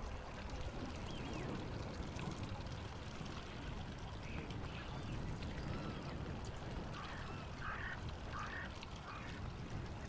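Birds calling over a steady low rushing background: a couple of short calls about four seconds in, then a run of four calls near the end.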